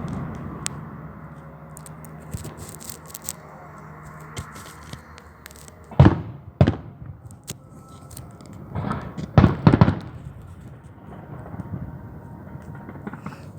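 Fireworks going off: scattered crackling, then two loud bangs about six seconds in and a quick cluster of bangs around nine to ten seconds in.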